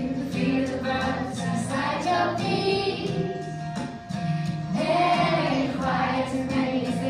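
A class of primary-school children singing a song together in unison, over musical accompaniment.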